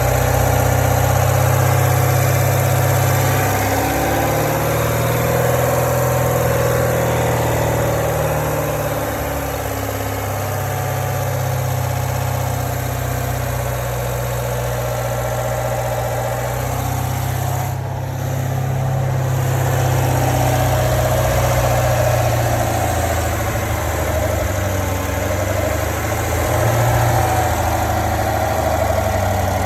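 2017 Corvette Grand Sport's 6.2-litre LT1 V8 running steadily at low rpm, with the rattling noise from the engine compartment that shows up at low rpm.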